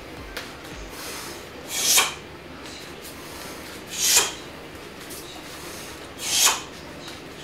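A martial artist repeats a low block from cat stance. Each block brings one whooshing rush of air and uniform fabric, three in all, about two seconds apart, each swelling and fading in under half a second.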